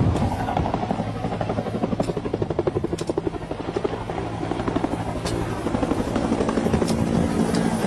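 Helicopter flying overhead, its rotor blades giving a rapid, steady chop over the engine's hum.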